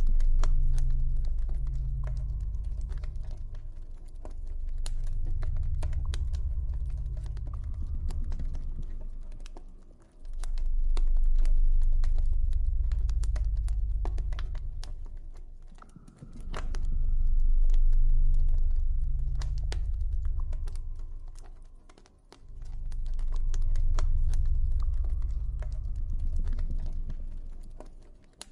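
Campfire crackling with many irregular sharp pops, over a deep low ambient drone that swells and fades about every six seconds.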